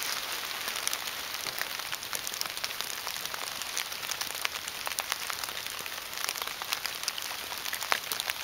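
Rain pattering on swamp foliage and the boat: a steady hiss dotted with many small drop ticks.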